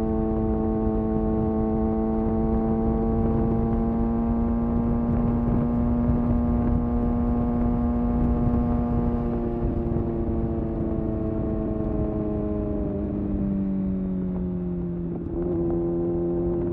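Kawasaki ZX-6R's inline-four engine running steadily under way, over low wind and road rush; its pitch eases down from about ten seconds in, with a brief dip in loudness about fifteen seconds in before it carries on at a lower pitch.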